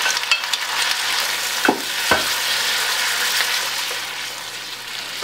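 Fried chicken pieces and vegetables sizzling in a hot wok as they are stirred and tossed with a wooden spatula, with two sharp knocks of the spatula against the wok about two seconds in.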